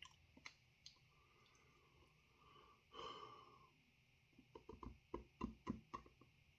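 Faint mouth sounds of a man tasting: a soft breath out about three seconds in, then a quick run of small lip smacks and clicks.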